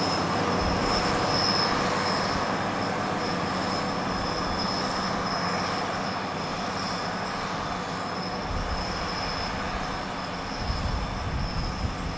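Fendt Vario tractors' diesel engines running steadily under heavy load while pulling a deep plough through clay, with a steady high whine over the engine hum. A few low knocks come near the end.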